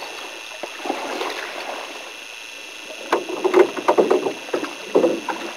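Canoe paddles dipping and splashing in the water, then a close run of sharp knocks and splashes over the last couple of seconds.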